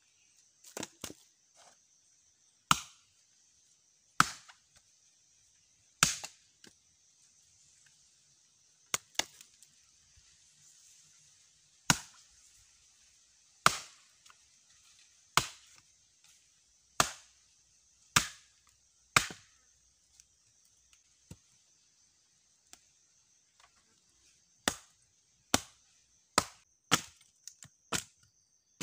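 Hatchet chopping into a log to split it into firewood: sharp wooden chops one every second or two, coming faster, about two a second, near the end. A steady high-pitched chirring runs behind them.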